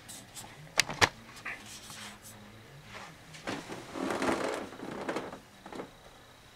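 Handling noise from a camera being set in place by hand: two sharp clicks about a second in and a few lighter ticks, then a stretch of rustling and shuffling as the person moves back from it and sits down.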